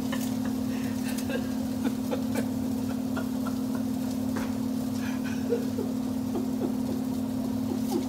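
Food sizzling in a pan on the stove and being stirred, with scattered crackles over a steady low hum.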